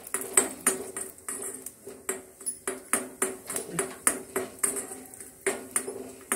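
Steel spoon scraping and knocking against an iron kadai while stirring roasting pieces of turmeric root: a quick run of metallic clinks, about three or four a second, each with a short ringing note, pausing briefly about five seconds in.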